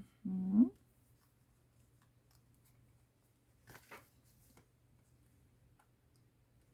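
A brief hummed "mm-hmm" at the start, then a quiet stretch with faint paper rustles and handling about four seconds in, as hands work on a journal page and envelope.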